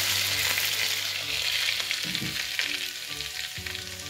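Hot desi ghee tadka with fried garlic and red chilli sizzling as it hits spinach and paneer in a glass bowl. The sizzle fades steadily as the ghee cools.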